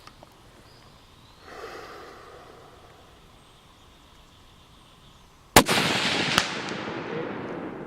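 A single unsuppressed shot from a Savage .223 rifle: a sharp, loud report with a long echo trailing off over the next two seconds. A second, fainter sharp crack comes under a second after the shot.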